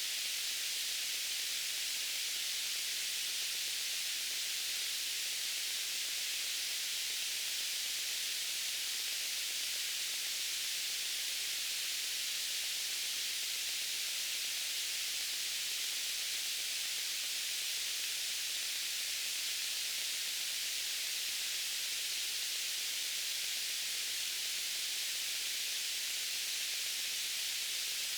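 White noise: a steady, unchanging hiss, bright and high with little bass.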